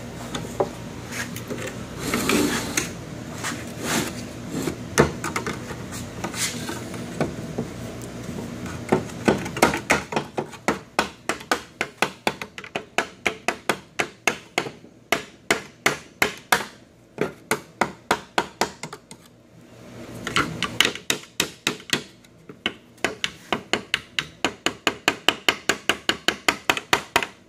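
Rapid hammer taps, about three or four a second, knocking a broken plastic tool-holder finger out of a Bridgeport Torq-Cut 22's tool-changer carousel. Scattered knocks and handling come first, then two long runs of taps with a short pause between them.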